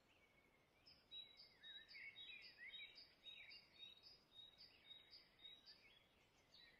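Near silence with faint, high bird chirps repeating a couple of times a second.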